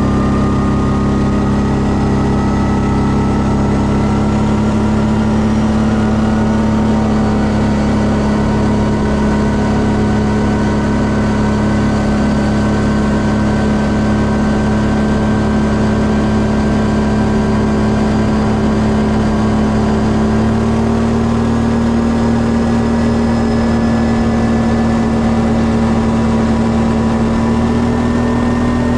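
Quad bike (ATV) engine running steadily at cruising speed, a constant drone whose pitch rises slightly about twenty seconds in.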